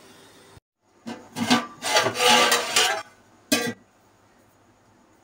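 Rough rubbing and scraping noise for about two seconds, then a single sharp knock.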